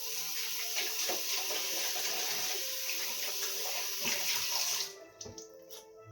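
Water running hard from a tap into a sink, starting suddenly and shut off after about five seconds.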